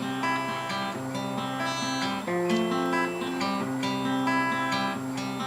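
Acoustic guitar strummed in a steady rhythm, chords changing every second or so: the instrumental break between sung lines of a song.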